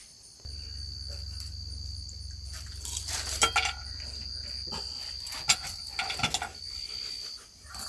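Crickets chirping in a steady high drone, with a low hum for the first few seconds and a few scattered light clicks.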